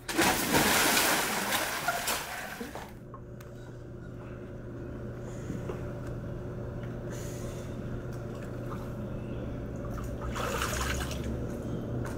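A clothed person falling into a swimming pool: a loud splash for about three seconds, then quieter water movement over a faint low hum, with another brief swell of splashing near the end.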